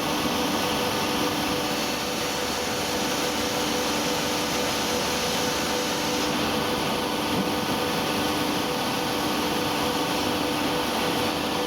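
Polyester staple fiber production machinery running steadily: an even mechanical hiss with a constant low hum.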